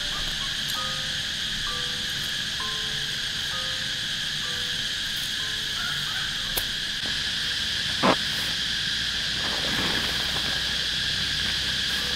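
Steady chorus of crickets and other insects chirring, with one sharp knock about eight seconds in.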